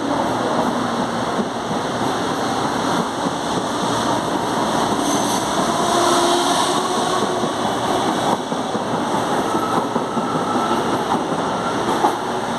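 CPTM Série 2070 electric multiple unit pulling away: a steady rumble of wheels on the rails, with a faint whine from the traction motors that rises in pitch now and then as the train gathers speed.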